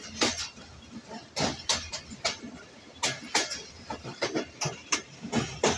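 Passenger train wheels clacking over rail joints while running, with sharp irregular clacks about two or three a second over a steady low rumble.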